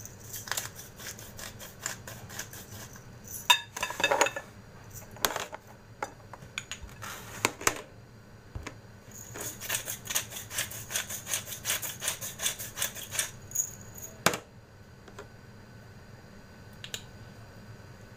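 Hand-twisted spice grinder grating seasoning onto raw chicken in rapid clicking, rasping spells over the first few seconds. Another long run of quick clicks follows around the middle, and then a single sharp click.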